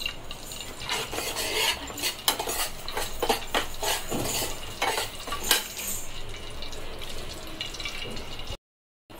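Steel spoon scraping and clinking against a kadai while stirring semolina and sugar roasting in ghee for halwa, in repeated irregular strokes over the first six seconds, then quieter, with a brief cut to silence near the end.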